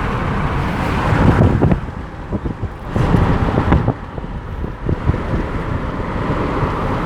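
Moving car: steady road and engine noise with a low rumble that swells and drops, loudest between one and two seconds in.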